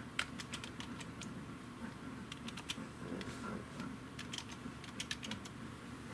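Typing on a computer keyboard in short runs of keystrokes with pauses between. Beneath it, a Cavalier King Charles Spaniel snores softly.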